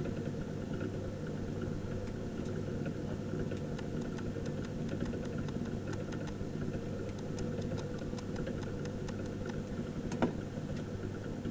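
Electric potter's wheel running steadily with a low hum, with faint light ticks over it and one sharper knock near the end.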